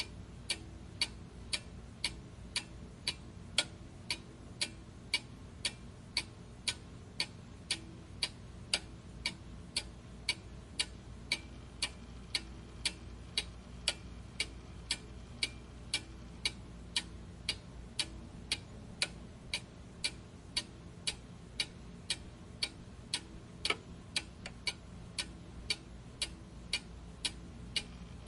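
Steady, regular ticking of about two ticks a second, like a clock.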